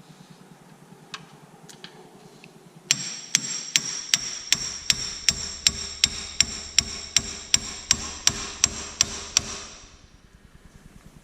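Power tool running with a steady high whine and sharp, evenly spaced clicks about three to four a second, starting suddenly about three seconds in and winding down near the end.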